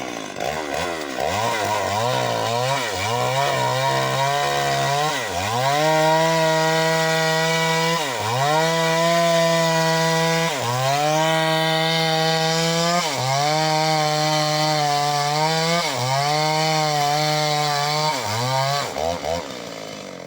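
Stihl MS 381 two-stroke chainsaw sawing through a mahogany log. It is revved a few times, then held at full throttle with its engine speed dipping briefly every two to three seconds under the load of the cut. The revs drop away near the end.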